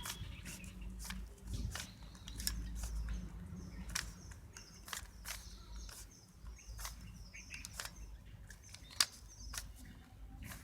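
3x3 Rubik's Cube being turned through a solving algorithm: irregular plastic clicks and clacks of the layers twisting, several a second, with one sharper click about nine seconds in.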